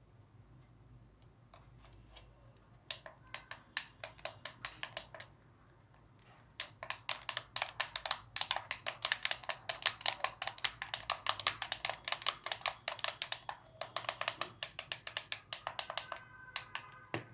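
Small sharp pops in quick succession, several a second: a short run about three seconds in, then a long, dense run from about seven seconds until near the end.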